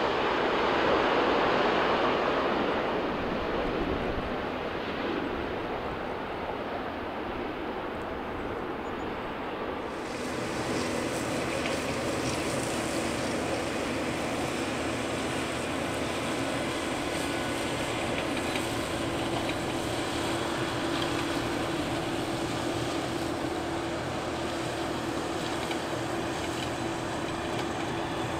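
Boeing 777 GE90 jet engines: a loud rumble that fades over the first few seconds as one jet rolls out after touchdown. After an abrupt change about ten seconds in, a steadier engine drone with a held tone comes from the next 777 on final approach and touchdown.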